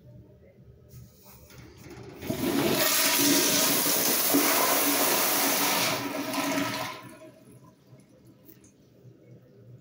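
Vintage 1970s Kohler Kingston wall-hung toilet flushing through its push-button flushometer valve: a loud rush of water starts about two seconds in and lasts about five seconds, then cuts back to a faint trickle as the bowl refills. The uploader says the bowl did not siphon on this flush.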